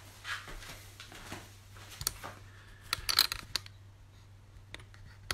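Scattered light clicks and knocks of objects being handled, bunched about three seconds in, over a steady low hum.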